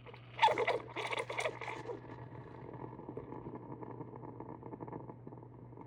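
Gevi espresso machine warming up in standby: a few sharp clattering knocks in the first two seconds, then a steady buzzing rattle over a constant low hum.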